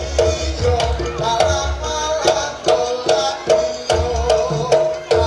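Traditional Indonesian dance music: a repeating melodic figure over sharp drum strokes and a low drum.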